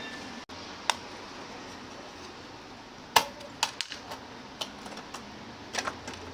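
Scattered sharp clicks and light metallic taps from a car navigation head unit being taken apart to remove its mainboard; the loudest tap comes about three seconds in, with a small cluster near the end.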